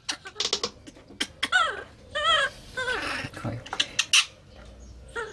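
Baby macaque giving a run of short, high-pitched calls that waver up and down in pitch, most of them in the middle couple of seconds. Short splashing clicks of water come in between.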